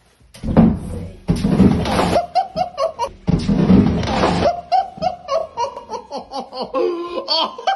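Two loud, noisy bursts of clattering as a cupboard is opened and an ironing board falls out of it, then a person laughing in quick repeated bursts through the second half.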